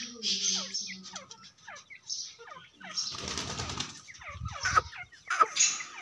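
A francolin (teetar) hen giving a run of short, soft, falling chirps, with a brief rustling, flapping burst about three seconds in.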